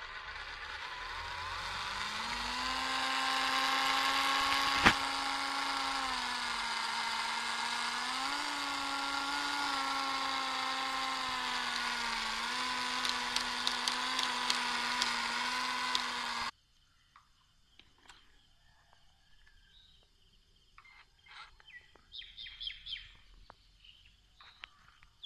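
Small electric motor from an RC helicopter driving a model boat's propeller: it spins up to a steady high whine that steps slightly up and down in pitch, with one sharp click about five seconds in. The whine stops abruptly, leaving quiet with faint bird chirps near the end.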